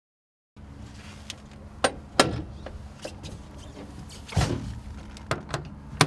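Several sharp metal clicks and clunks, the sound of caps and access covers being handled on an excavator's engine compartment, over a steady low mechanical hum.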